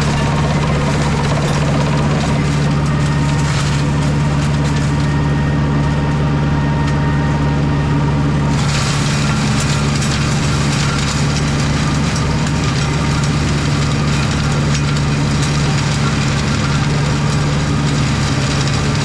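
Tractor engine running steadily under load while its mulcher shreds dense, woody blackberry brambles. About halfway through, the shredding noise suddenly gets louder and hissier as the mulcher bites deeper into the thicket.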